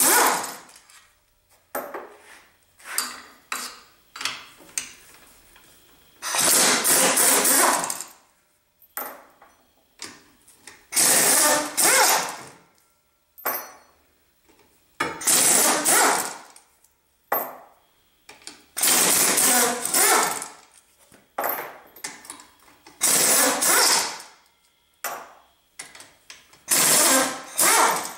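Pneumatic impact wrench running in repeated bursts of one to two seconds, about every four seconds, while it loosens bolts on a compressor crankcase. Shorter blips and clicks come between the bursts.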